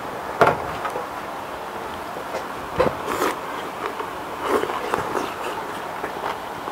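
Eating noodles up close: chopsticks and a fork clicking against the plate, with noodles slurped and chewed about halfway through.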